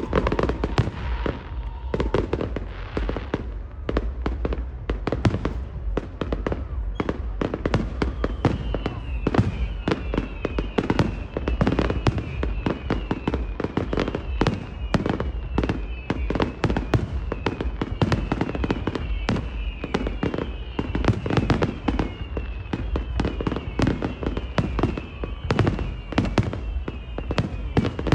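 Fireworks display: a dense, unbroken run of bangs and crackles over a deep rumbling boom. From about eight seconds in, a high whistle that falls in pitch again and again sounds above the bangs.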